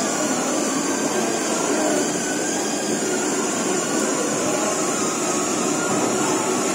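A steady, even roar of background machinery.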